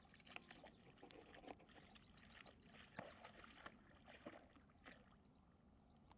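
A dog wading and lying down in a shallow muddy pool, its movements making quiet, irregular splashes and sloshing of water.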